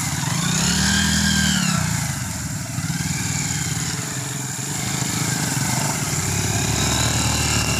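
Several small motorcycle engines running as the bikes ride over spread dried sesame plants to thresh them. About a second in, one engine's pitch rises and then falls.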